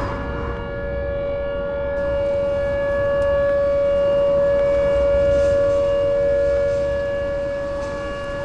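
Outdoor tornado warning siren sounding a steady tone at one unchanging pitch. It swells louder to a peak about halfway through, then fades near the end.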